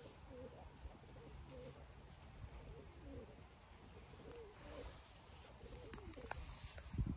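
A dove or pigeon cooing: a slow, repeated series of soft, low hooting notes. Near the end there are a few light knocks and a dull thump.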